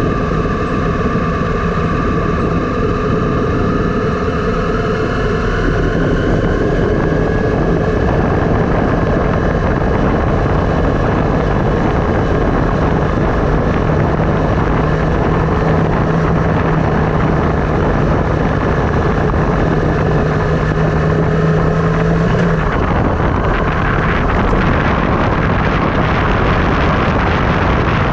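Steady rush of wind on the action camera's microphone mixed with tyre noise from a bike riding down a road. A few faint steady tones run under it, and a low hum sounds through the middle stretch.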